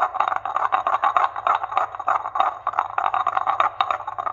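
Stone pestle grinding and scraping a wet oatmeal mixture against a stone mortar, a rapid, gritty run of many short strokes.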